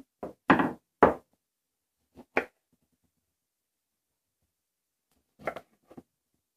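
A few sharp knocks and clacks of limes and kitchen utensils being handled on a work surface. The two loudest come about half a second and a second in, with softer ones in the middle and near the end.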